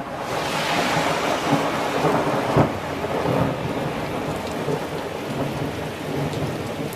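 Thunderstorm: rolling thunder over steady heavy rain, with one sharp, loud crack about two and a half seconds in.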